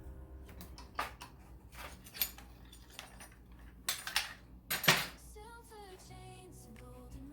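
A series of sharp metallic clinks and knocks, a handful spread irregularly, the loudest a little before the five-second mark, as metal objects are handled in the casting shop.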